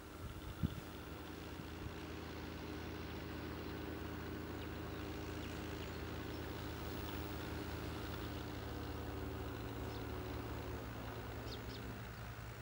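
Tractor engine running steadily, a low even hum that holds its pitch, with a few sharp knocks in the first second.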